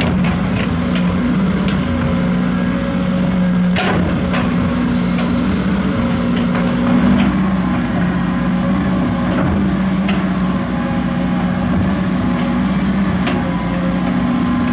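Heavy construction machine's diesel engine running steadily at a constant pitch, with scattered sharp metal knocks, the loudest about four seconds in.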